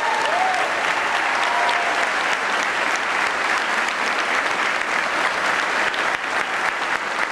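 A room full of people applauding: steady, dense hand-clapping with no let-up.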